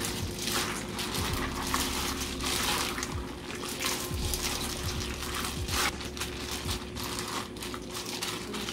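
Water splashing and running in a kitchen, with irregular light clinks and knocks of dishes or utensils.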